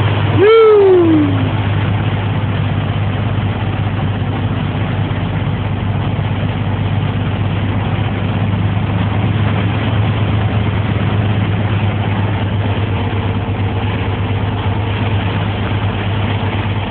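A vehicle engine running with a steady low hum. About half a second in, a short loud tone slides down in pitch for about a second.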